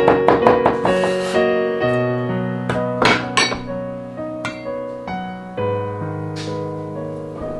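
Piano background music, with a cleaver chopping rapidly on a wooden board, about five strokes a second, for the first second or so. Later come a few scattered clicks, like a bowl and chopsticks clinking.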